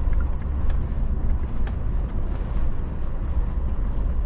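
Four-wheel-drive vehicle driving slowly along a gravel desert trail: a steady low rumble of engine and tyres, with a few light clicks.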